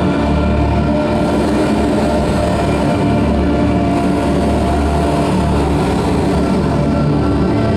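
Loud live heavy band music: a dense, sustained wall of sound with many held pitches and a heavy low end.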